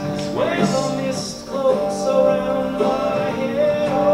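A recorded song with a male singer over guitar, drums and cymbals, played back as one engineer's mix in a listening test comparing mixes of the same multitrack song.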